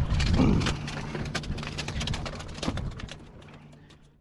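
Wind buffeting the microphone and a faint steady low hum, with many short clicks and taps. It all fades out toward the end.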